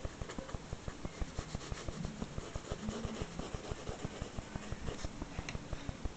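Pencil shading on sketchbook paper: quick, regular back-and-forth strokes, several a second.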